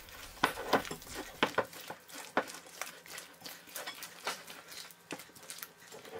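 A bare hand squeezing and mixing a soft, sticky mixture of butter, sugar and eggs in a glass bowl: irregular wet squelches and small clicks.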